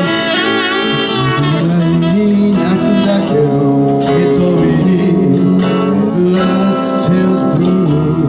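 Live rock band playing, with guitars to the fore over keyboard and drums.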